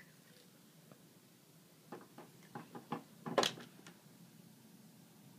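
Spoon and plastic toy parts knocking and clicking as the gummy mixture is pushed into the mould: a single click at the start, then a quick run of small knocks about two seconds in, ending in one louder clatter.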